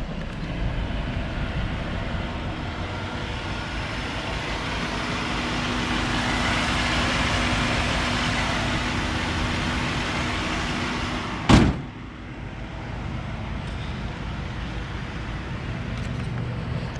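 Cadillac Fleetwood Brougham's V8 idling smoothly with its hood open, a steady hum with a faint even tone. About eleven seconds in comes a single loud slam, and the engine sound is quieter after it.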